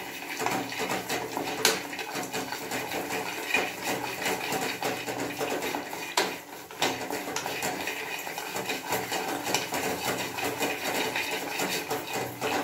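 A wooden spatula stirs cashews, almonds and pistachios in an aluminium kadai, the nuts clattering and scraping against the metal pan in a steady run of small clicks and occasional louder knocks. The nuts are being lightly roasted in a little ghee.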